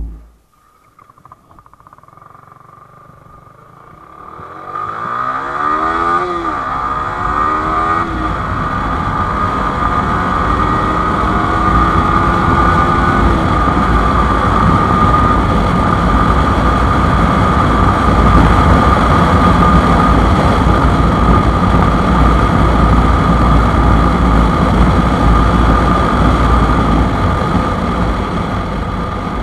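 Yamaha R15 V4 motorcycle pulling away about four seconds in and accelerating through the gears, its engine pitch climbing and dropping back at each of two shifts. It then runs at steady high speed with a heavy rush of wind.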